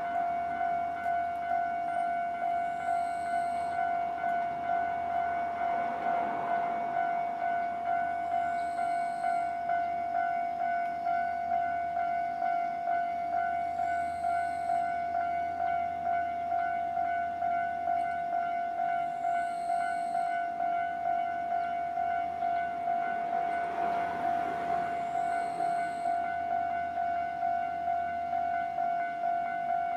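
Japanese railway level-crossing warning bell ringing continuously: a steady, evenly pulsing electronic ding on one pitch. A broader rushing sound swells and fades about six seconds in and again near the end.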